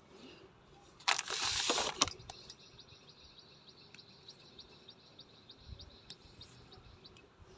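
A short rustle about a second in. Then faint, rapid, high chirping, several chirps a second, runs for about four seconds.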